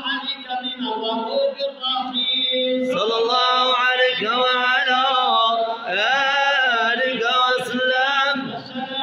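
Group of men chanting madih, Arabic praise poetry for the Prophet, together and unaccompanied, in long melodic lines with held, ornamented notes. There is a short break about three seconds in before the chant comes back fuller.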